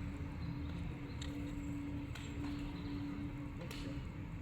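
Outdoor ambience: a steady low hum over a low rumble, with a few faint short ticks scattered through it.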